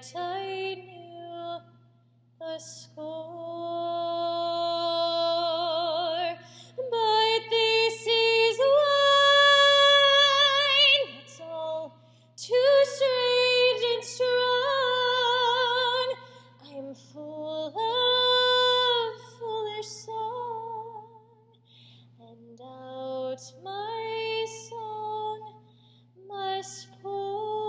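A woman singing solo and unaccompanied, practising repertoire in a theatre's resonant acoustics. She sings phrases of long held notes with vibrato, with short breaks between phrases.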